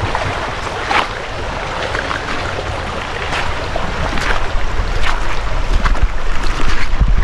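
Shallow stream water running over rocks and gravel, with wind rumbling on the microphone that grows heavier near the end.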